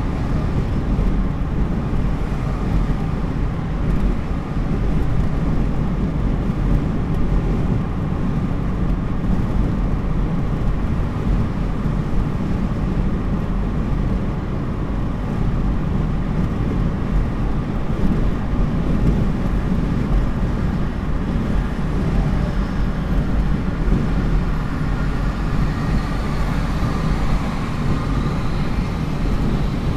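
Steady road and engine noise of a car cruising at highway speed, heard from inside the cabin: a low, even rumble of tyres and wind that does not change.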